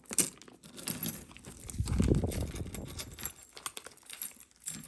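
Costume jewelry being handled: small metal and bead earrings clicking and clinking together, with light rustling of a plastic bag, irregular throughout and a little louder around two seconds in.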